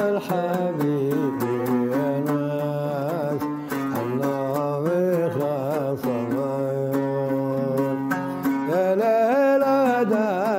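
A man singing a Hijazi dana, a drawn-out vocal line with wavering, gliding ornaments, accompanied by an oud plucked in quick strokes.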